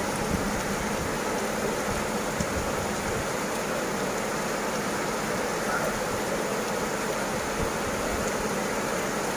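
Heavy downpour on a flooded street: a dense, steady hiss of rain and running floodwater.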